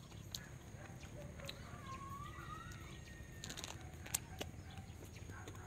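Faint rural background with distant chickens and birds calling, including one wavering call about midway. A few soft clicks and smacks follow in the last third as a cashew apple is bitten into.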